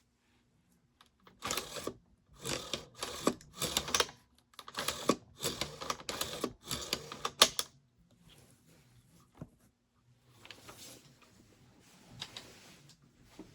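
AR-15 carbine buffer and recoil spring system being worked by hand, giving bursts of quick metallic clicks and clacks. They come thick and loud for the first several seconds, then quieter and sparser in the last few seconds.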